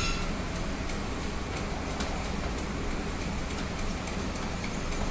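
Kuih siput dough-extruding machine running with a steady mechanical rumble and low hum, with a few faint clicks.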